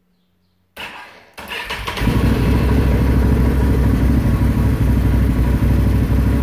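2017 Can-Am Renegade ATV's V-twin engine being started: a short burst of electric-starter cranking under a second in, the engine firing about a second and a half in and settling into a steady idle near 1500 rpm.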